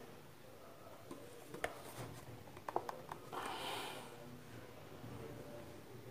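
Light clicks and taps of a homemade PVC-pipe shower head being handled, with a short hiss a little over three seconds in.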